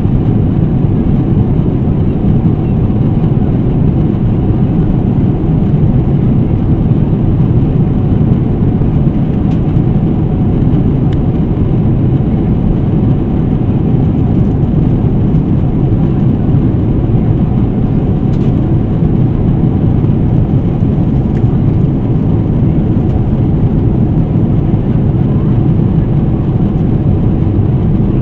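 Steady cabin noise of a Boeing 777-300ER in cruise flight: a loud, even, low rumble.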